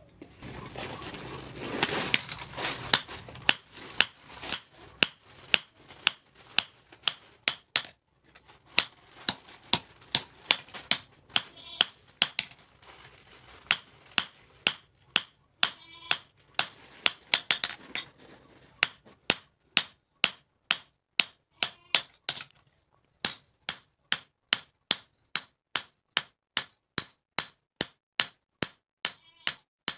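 Hand hammer striking a steel meat cleaver blade on an anvil in a steady rhythm, about two blows a second, each with a bright metallic ring. A rushing noise runs under the blows in the first few seconds.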